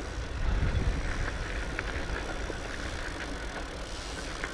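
Fat bike rolling down a steep, narrow dirt footpath: a steady low rumble of tyres on the ground, with a few faint clicks.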